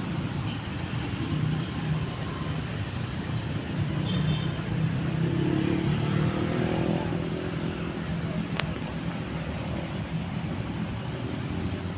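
Steady low engine rumble, like motor traffic, with one brief sharp click about two-thirds of the way through.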